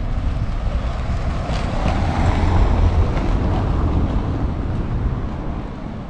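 A car driving, heard from inside the cabin: a steady rumble of engine and tyre noise that swells a little in the middle and eases off near the end.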